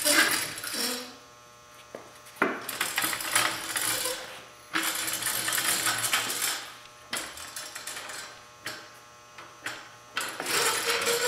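Small casters of a cheap steel engine stand loaded with an engine, rattling and scraping over a concrete floor in a series of short pushes. The wheels are too poor to roll freely, which the owner takes as a sign that they are junk.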